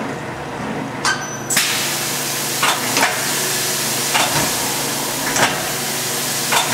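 Agma VMC-84 vertical machining center's side-mount tool changer cycling over the machine's steady hum: a series of mechanical clicks and clunks as the arm swings in to the spindle. A steady hiss starts about a second and a half in and runs on under the clicks.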